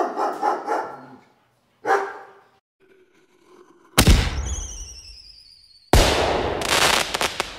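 Recorded trigger sounds played one after another: a dog barking several times, then a sudden loud bang with high falling whistling tones after it, and about two seconds later a second loud bang followed by rapid crackling, like fireworks going off.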